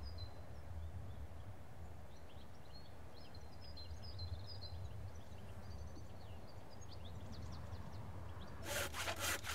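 Small birds chirping over a steady low outdoor rumble. Near the end, rhythmic strokes of a hand saw cutting timber begin.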